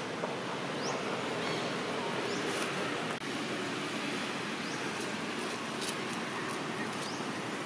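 Steady outdoor background hiss with short, high, rising chirps every second or two, and a few faint ticks.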